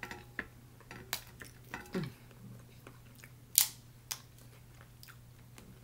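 Cooked snow crab leg shells being cracked and snapped apart by hand: a few small clicks, then one sharp snap about three and a half seconds in and a smaller one just after.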